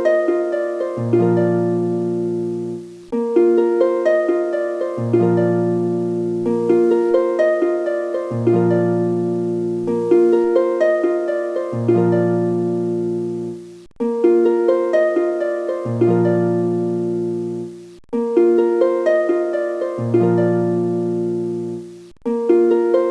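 Instrumental background music of plucked-string arpeggios over sustained bass notes. The phrase repeats, breaking off abruptly and starting again several times.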